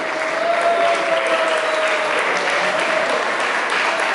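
Audience applauding. One long, wavering held cheer sounds over the first half of the applause.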